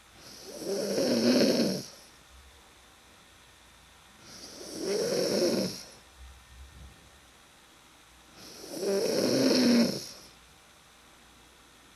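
A sleeping person snoring: three long, loud snores about four seconds apart, each lasting about a second and a half.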